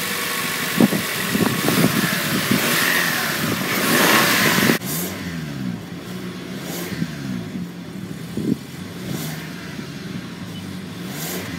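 A 2018 Toyota Camry's 2.5-liter four-cylinder engine running, heard first under the open hood, then, after a sudden cut about five seconds in, quieter at the tailpipe.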